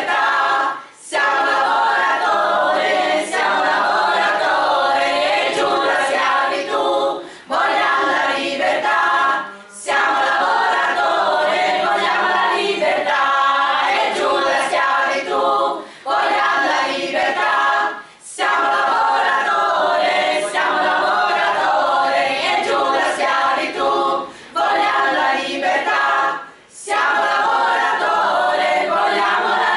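A small women's choir singing a cappella, several voices together in long sustained phrases, with a few short pauses between phrases.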